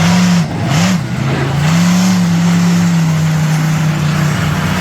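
Monster truck engine revving in quick blips, then held at a steady speed.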